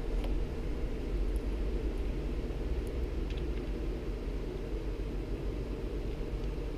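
Steady low background hum, with a few faint small ticks from a screwdriver turning a small screw into a plastic RC-truck steering wheel.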